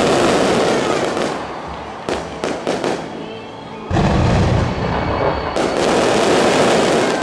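Fireworks going off: a dense crackle of bursting shells, a quick run of sharp bangs about two seconds in, then a deep boom about four seconds in followed by more loud crackling.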